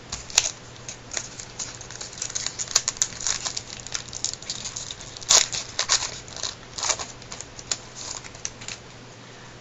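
Trading cards and their packaging being handled: a string of quick crinkles, rustles and clicks, the loudest about five seconds in.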